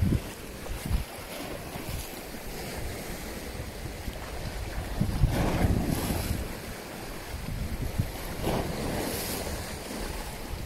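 Wind buffeting the microphone over the wash of sea waves. The noise swells louder about halfway through and again a few seconds later.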